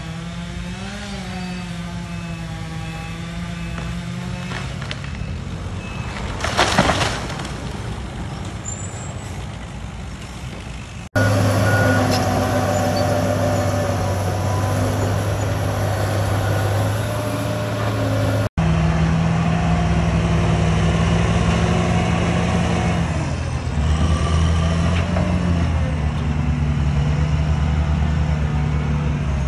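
Diesel engines of heavy earthmoving machines running and revving under load, in three stretches cut together: a tracked excavator, then a crawler loader, then a wheel-tractor scraper. A short, loud noisy burst comes about seven seconds in, and the sound jumps abruptly louder at each cut.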